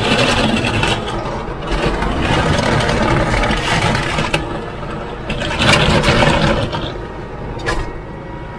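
Kubota MX5400 tractor's diesel engine running under load while its rear blade scrapes and pushes snow. The scraping comes in several surges that swell and ease.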